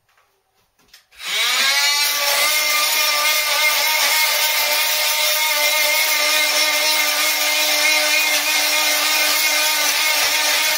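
Cordless oscillating multi-tool fitted with a scraper blade starts up about a second in, its pitch rising briefly. It then runs at a steady pitch while scraping old plaster off the brickwork of a chimney breast.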